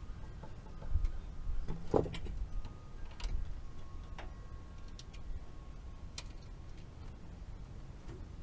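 Scattered clicks and knocks of hands and tools working on a heat pump's electrical connections, with a louder clunk about two seconds in, over a low rumble.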